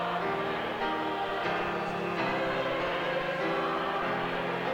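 A choir singing slow sustained chords, the voices moving together from one held chord to the next.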